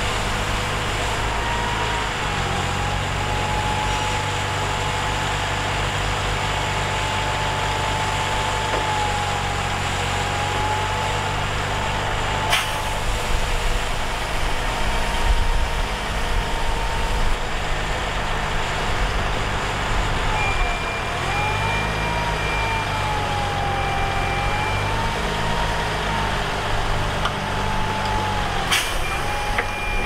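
Heavy diesel engines of a bulldozer and dump truck running steadily, with a high whine that wavers up and down in pitch. Two sharp metallic knocks come about halfway through and near the end.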